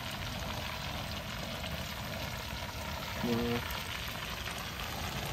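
Battered shark pieces deep-frying in a pot of hot oil, a steady sizzle. A brief voice sound cuts in about three seconds in.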